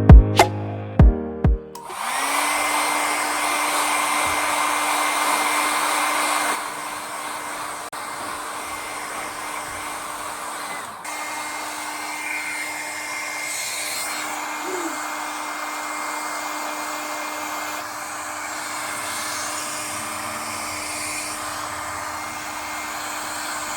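Handheld hair dryer switched on after a short burst of music with a beat, then running steadily: a rush of air with a constant motor whine. About six seconds in it gets noticeably quieter, and it carries on at that lower level with a brief dip about eleven seconds in.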